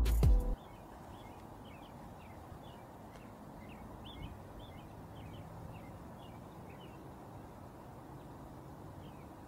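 Birds chirping outdoors: many short, high chirps, several a second, over a faint steady background hiss.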